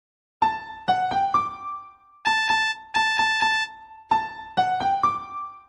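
Huawei phone ringtone: a short piano-like melody of ringing notes, played as a phrase that repeats three times.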